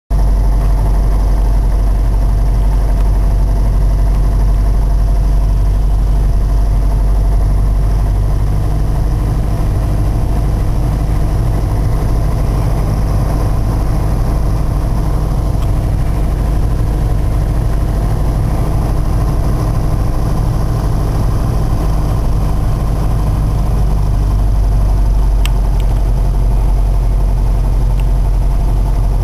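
Piper Archer III's four-cylinder Lycoming O-360 engine and propeller running steadily on final approach, heard as a loud, even drone inside the cabin.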